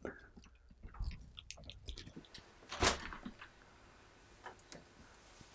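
Faint scattered knocks and handling noises, then a single louder, sharp knock just under three seconds in, followed by a few faint clicks.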